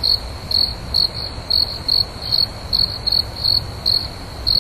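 Crickets chirping: short chirps repeating about two to three times a second, with a steady low background rumble beneath.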